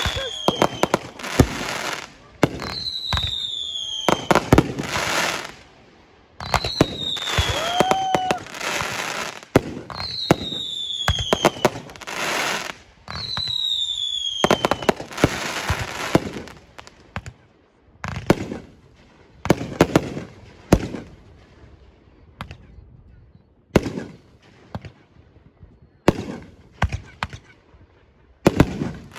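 Fireworks going off: rapid bangs and crackling, with several short whistles falling in pitch in the first half, thinning to scattered separate bangs in the second half.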